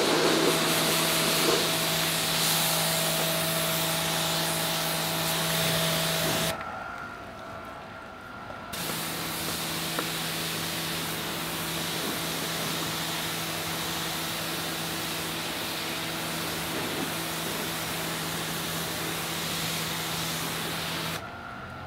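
SunJoe SPX-9009-PRO electric pressure washer rinsing a car: a loud hiss of the water jet striking the bodywork over the steady hum of the motor and pump. About six seconds in, the sound breaks off for about two seconds, then runs again until shortly before the end.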